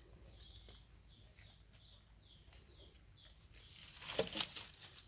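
Short, high, falling chirps repeating about twice a second, then a burst of rustling and crackling in dry leaf litter about four seconds in, the loudest sound.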